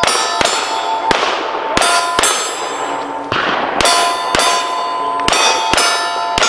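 Pistol shots at steel targets, about a dozen fired roughly two a second, each sharp crack followed by the ringing clang of struck steel plates.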